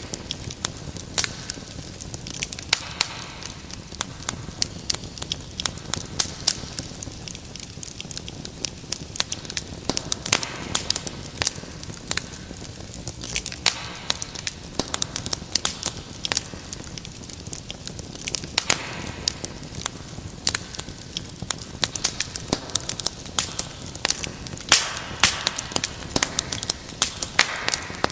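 Wood fire crackling in a fireplace, with frequent irregular pops and snaps over a soft steady hiss.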